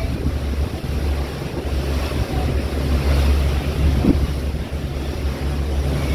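Strong wind buffeting the microphone on a moving boat's open stern deck, over the boat's engine running and its wake churning.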